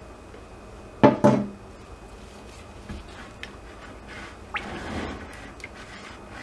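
Two sharp knocks close together about a second in, as the emptied plastic lye-solution bucket is set down on the table. A brief wet swish follows near the middle as a gloved hand works the oils and lye solution in a plastic bowl.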